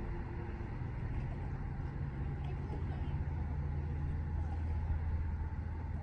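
A motor engine running out of sight, a low steady hum that starts about a second in and grows louder near the middle, over a continuous background hiss.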